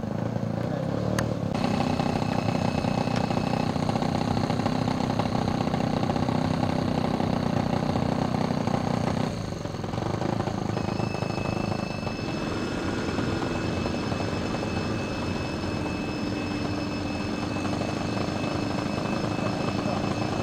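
RC scale model warbird's engine running steadily at low throttle on the ground while it taxis, with a thin steady high whine over the low running sound.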